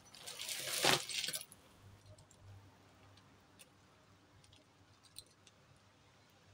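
A hand rummaging through a heap of costume jewellery, metal chains and beads jangling and clinking for about a second and a half, then a few faint clicks as a single necklace is handled.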